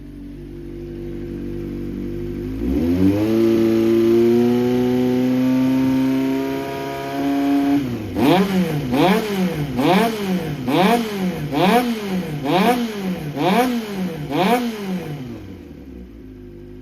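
Honda CBX400F's air-cooled inline-four idling, then revved up and held at raised revs for several seconds, then blipped about eight times in quick succession before dropping back to idle. The seller describes the freshly overhauled engine as running well, with no abnormal noises.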